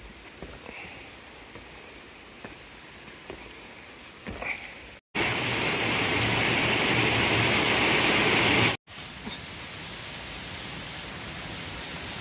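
A soft, even rushing noise with a few faint clicks. About five seconds in, it cuts abruptly to a much louder, steady, hissing rush lasting about four seconds, then cuts to a moderate, steady rush.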